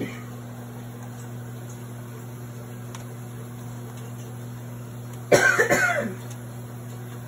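A person coughs once about five seconds in, a short outburst lasting under a second, over a steady low hum.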